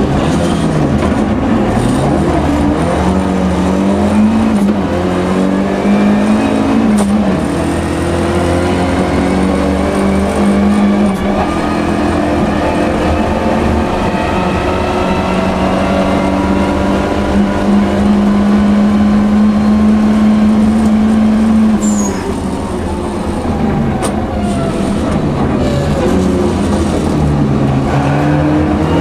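Volvo 242 Turbo rally car's turbocharged four-cylinder engine at racing speed, heard from inside the cabin. The revs climb and drop through gear changes and are held high and steady for several seconds in the middle. The engine eases off briefly about two-thirds of the way through, then pulls up again.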